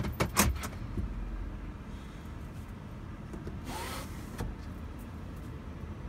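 Car heard from inside the cabin as it creeps forward at idle into an automatic car wash bay, a low steady rumble. A few sharp clicks come just after the start, and a short whirring rush comes about four seconds in.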